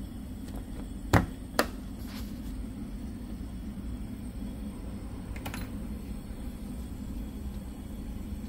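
Control-panel switches on a Laguna SmartShop M CNC router being worked: two sharp clicks about a second in as the emergency-stop button is operated, then a softer click a few seconds later as the key power switch is turned. A steady low hum runs underneath.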